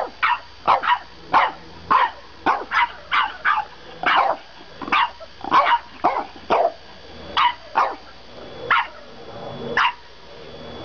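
French bulldogs play-barking at each other: a rapid run of short, sharp, high yapping barks, about two a second, some in quick pairs.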